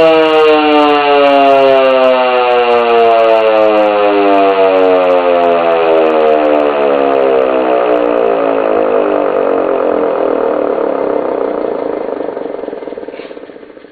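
Federal Signal Type 2 electromechanical civil defense siren on 120 V winding down after being unplugged: one continuous wail sliding slowly lower in pitch, fading away over the last few seconds.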